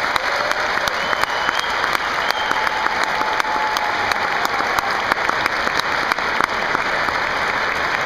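Large audience applauding steadily, many hands clapping.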